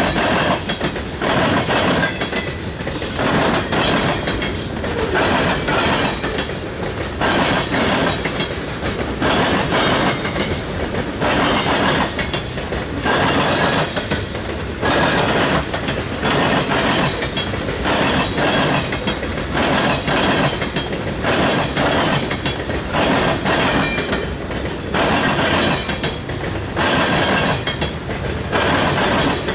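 Union Pacific train's cars rolling past at close range, the wheels clattering over the rail joints in a steady rhythm of about one knock a second.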